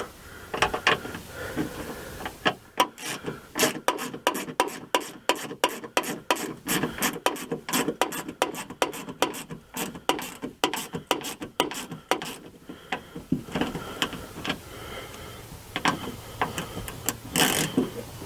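Hand ratchet clicking in repeated back-and-forth strokes as the bolts holding a car door latch assembly are run in and snugged down.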